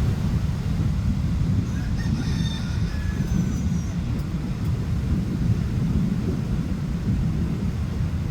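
Steady low rumble of wind buffeting the microphone over the surf. A brief wavering bird call, like a rooster's crow, rises above it about two seconds in.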